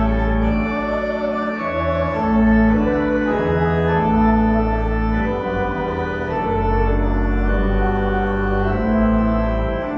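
Church organ playing slow, sustained chords, with the bass notes changing every second or two.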